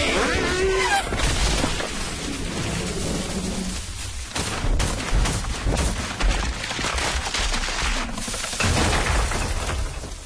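Cartoon sound effects: a dense run of crashes, bangs and rumbling booms, with a short wavering squeal in the first second; it fades away near the end.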